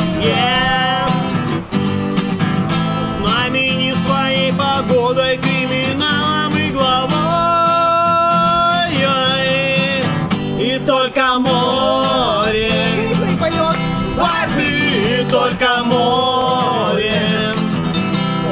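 A man sings a song while playing an acoustic guitar, and a woman sings along with him.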